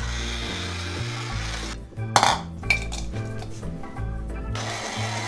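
Background music with a steady bass line, over the kitchen noise of graham crackers ground in an electric coffee grinder and the crumbs knocked out of its cup into a bowl. A sharp knock comes about two seconds in.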